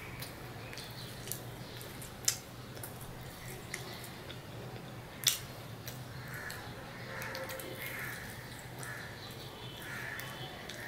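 A person chewing egg-fried bread with soft mouth sounds, with two sharp clicks about two and five seconds in, over a steady low hum.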